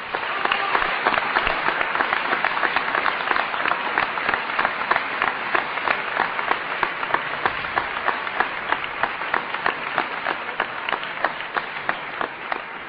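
Audience applauding: many hands clapping together, starting abruptly and easing off slightly toward the end.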